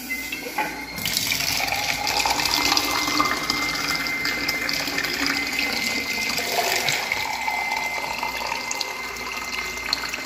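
Water running from a vending machine's dispenser into a cup, a steady pour, with a thin steady high whine alongside it.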